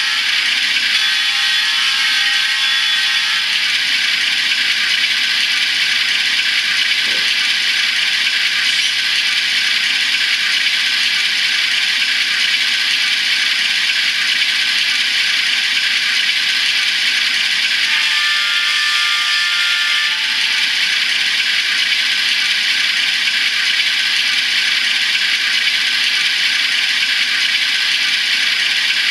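LokSound Micro sound decoder in an N scale GE ES44AC GEVO model locomotive, playing a recorded GEVO diesel engine running steadily through its tiny speaker, thin and hissy with almost no bass. A brief pitched sound is layered over it about 18 seconds in.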